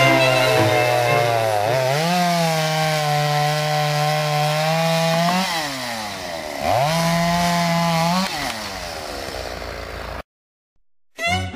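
Two-stroke chainsaw running at high revs, its pitch holding steady for stretches and sagging and picking up again several times as the throttle and cutting load change. The sound cuts off abruptly about ten seconds in.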